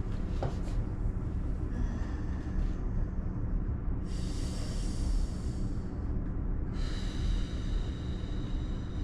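A person's heavy breathing, two long breaths about four and seven seconds in, over a steady low hum.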